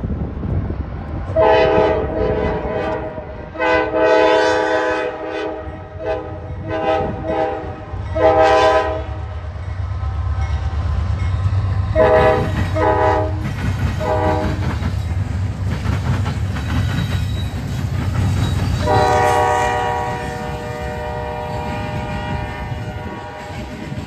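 A Norfolk Southern diesel locomotive's multi-chime air horn played in a horn show: a string of short toots and a few longer blasts in an irregular pattern, a pause, then one long blast in the last few seconds. Under it, the locomotives' diesel engines rumble as the freight train rolls past.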